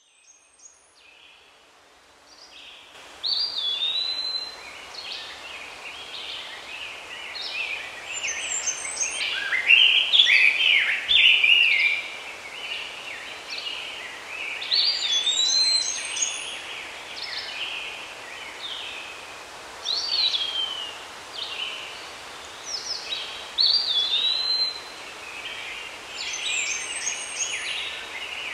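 Several birds singing and calling together, a dense mix of short chirps and whistled phrases that bend in pitch, over a steady background hiss. It starts faint and comes up to full level about three seconds in.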